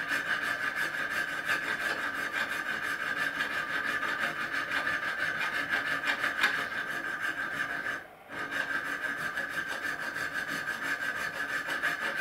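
Hand file rasping back and forth through a row of drilled holes in a metal bar held in a vise, joining them into an exhaust port channel. Steady filing strokes, with a brief pause about eight seconds in.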